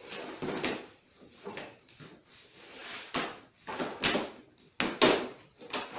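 Handling noise from a face-painting kit being laid out on a folding table: a series of knocks and clacks as cases and a lid are lifted and set down, with rustling between them. The loudest two knocks come about four and five seconds in.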